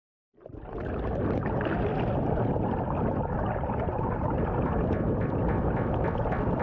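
Steady road and engine noise of a car being driven, heard inside the cabin. It fades in quickly about a third of a second in.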